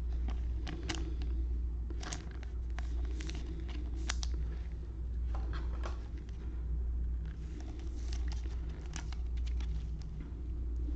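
Trading cards being handled, with scattered light clicks and rustles, over a steady low hum.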